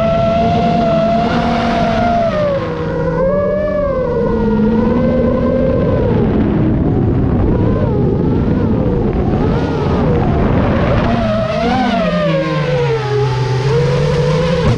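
Gyrocopter's motor running under power, its pitch rising and falling as the throttle changes, with rushing air noise through the middle.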